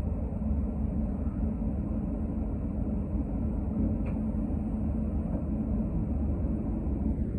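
City transit bus running, heard from inside the passenger cabin: a steady low engine and road rumble, with a faint click about four seconds in.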